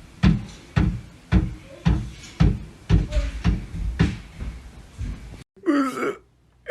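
Repeated dull knocks or thuds, about two a second in a steady rhythm. They stop abruptly after about five seconds, followed by a brief gliding voice-like cry.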